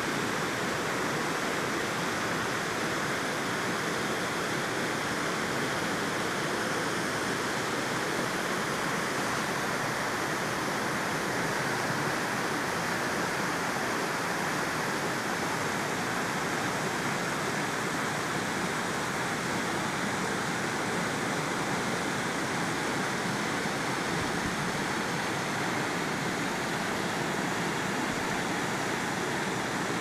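Waterfall running after rain: water falling over a rock ledge more than 30 ft high and splashing onto rocks and into a pool below, a steady, loud rush of water.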